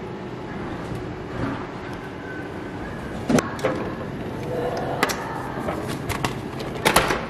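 Plastic delivery flap of a snack vending machine being pushed open and a potato-chip can knocking against it as it is taken out of the tray: a few sharp clacks, the loudest near the end, over a steady background hum.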